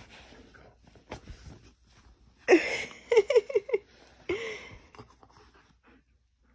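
Soft rustling of fur and bedding as a small shaggy dog is handled at play. About two and a half seconds in comes a loud burst of short, rising vocal sounds, five or six in quick succession, then one more a second later, before it falls almost silent.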